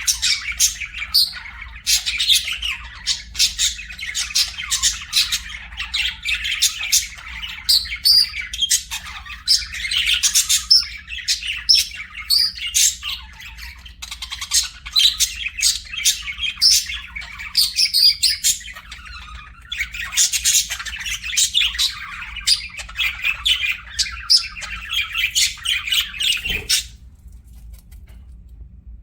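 Pet budgerigars chattering: a rapid, continuous stream of high chirps, warbles and squawks that stops abruptly near the end.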